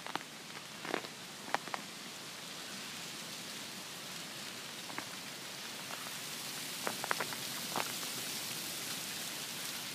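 Ice-coated tree branches crinkling and crunching in a light wind: scattered sharp cracks and clicks over a steady hiss that swells a little in the second half.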